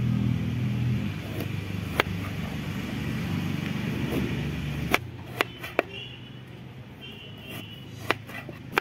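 A kitchen knife slicing through a raw turnip and tapping on a wooden cutting board, a few sharp, separate taps, most of them in the second half. Under the first five seconds or so a steady low motor hum runs and then stops abruptly.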